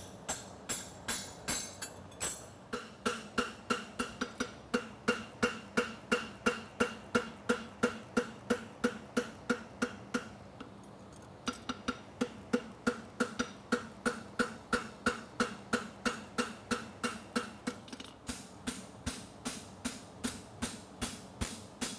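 Hand hammer forging a red-hot steel horseshoe on an anvil: a steady run of blows, about three or four a second, each followed by the anvil's ring. The blows break off for about a second midway and then pick up again.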